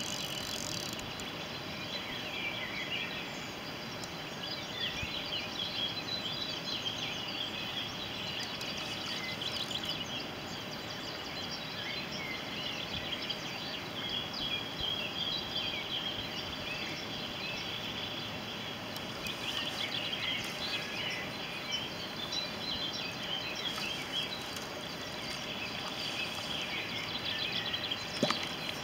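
Several small birds singing and calling in short, scattered chirps over a steady outdoor background hiss.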